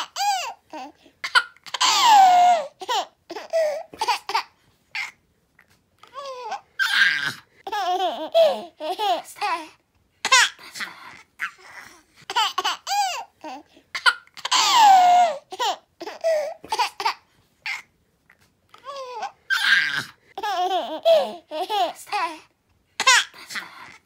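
A baby giggling and laughing in short bursts of high-pitched giggles with brief pauses between them. The same run of giggles plays twice, the second starting about halfway through.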